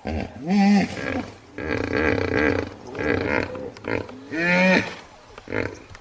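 Hippopotamus calling: a series of loud, pitched calls, the two loudest rising and then falling in pitch, one about half a second in and one about four and a half seconds in, with shorter calls between.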